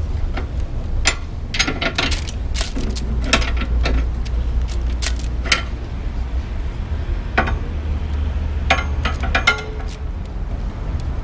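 Metal clinks and clicks of a socket wrench working the rear axle nuts of a cargo bike's rear wheel, in irregular clusters of sharp taps.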